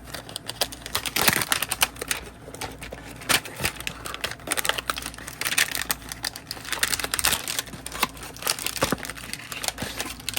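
Crinkling and rustling of trading-card packaging being handled: plastic pack wrappers and cardboard hanger boxes, with irregular clicks and crackles throughout.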